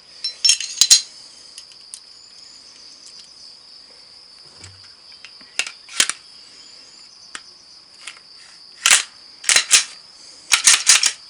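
Sharp metallic clicks and clacks of a field-stripped Glock 17 pistol's parts (slide, barrel, recoil spring and frame) being handled and set down, in scattered groups of a few clicks each.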